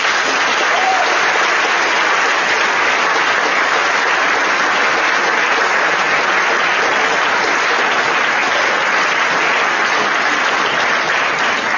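Audience in an auditorium applauding steadily, dense clapping that starts suddenly and fades away near the end.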